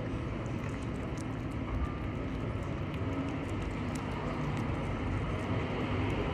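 Steady low rumble of city street traffic, with faint small clicks of a cat eating wet food from a tray.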